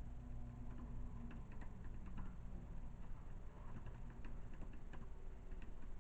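Computer keyboard being typed on in short, irregular runs of light clicks, over a low steady hum.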